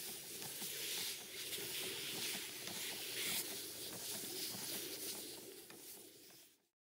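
Garden sprayer wand hissing steadily as it mists strawberry leaves, with small ticks of droplets. The hiss fades near the end and then cuts off abruptly.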